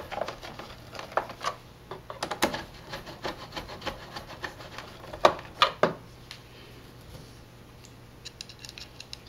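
Irregular clicks and scraping of screws being driven back in by hand to fasten a TV's power supply board, with the board and screwdriver knocking against the metal chassis; two sharper knocks about five and a half seconds in, quieter rubbing after.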